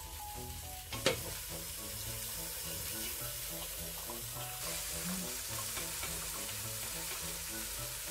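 Boiled mutton pieces sizzling as they are spooned into a hot pan of fried onions and spices. A single sharp knock comes about a second in, and the sizzle grows louder about four and a half seconds in. A background tune plays underneath.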